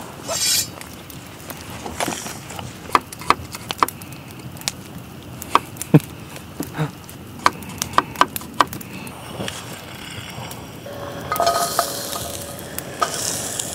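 Kitchen knife knocking on a cutting board as garlic is sliced, about a dozen sharp, irregularly spaced knocks. Near the end, a hissing sizzle as the garlic fries in the pan.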